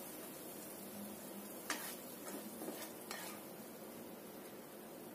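Black plastic spatula scraping and stirring sticky, sauced clams in a non-stick wok, with a few sharp taps against the pan in the middle seconds, over a faint sizzle.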